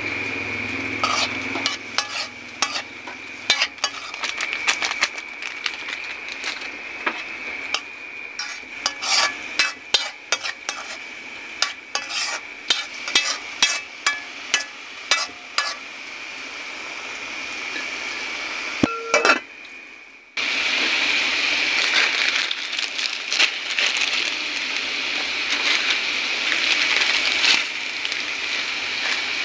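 A spoon stirring and scraping shrimp and chicken in a metal pot, with many quick clinks against the pot over the sizzle of the simmering food. After a short break about two-thirds of the way through, a steady sizzling hiss runs on, with a thin high whine throughout.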